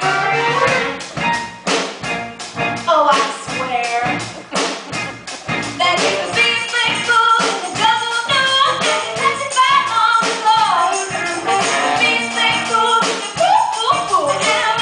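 Live stage-musical number: singers with band accompaniment and a steady beat.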